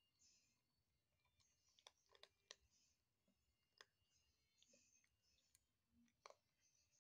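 A kitten crunching dry kibble: faint, crisp crunching with sharp clicks at irregular intervals, three close together about two seconds in and single ones near four and six seconds.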